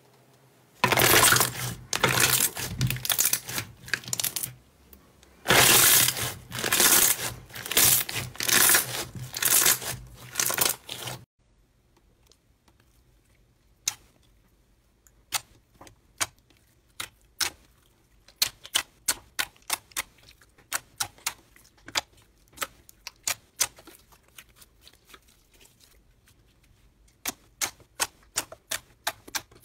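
Hands squishing and stretching clear slime. For about ten seconds there are surges of dense crackling squelches, with air bubbles popping through the bubbly slime. After a short pause come sharp, separate pops and clicks as clear glitter slime is pressed and poked, sometimes in quick runs.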